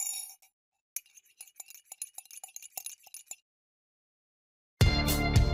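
Light ringing clinks: one strike at the start, then after a short pause a quick, uneven run of clinks lasting about two and a half seconds. Near the end a loud music track with a heavy beat comes in.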